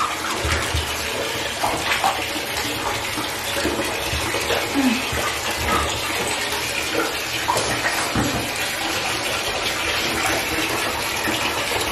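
Water running from the tap into a bathtub as it refills: a steady rush of water throughout.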